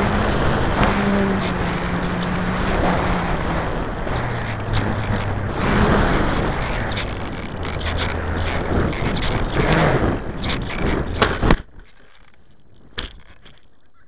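Radio-controlled model airplane heard from its onboard camera: the motor running under heavy rushing air noise, its pitch dropping about four seconds in as the throttle comes back. Then a run of scrapes and knocks as it touches down in the grass, and the sound cuts off abruptly about three-quarters of the way through as the propeller stops.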